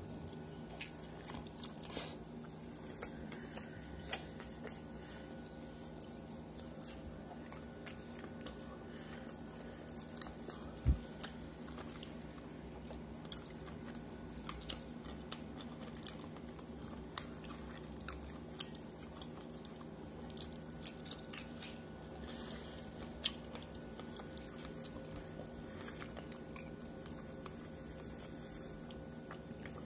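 Close-up mouth sounds of a person eating street tacos: chewing, with scattered short wet clicks and crunches and one duller thump about eleven seconds in, over a steady low hum.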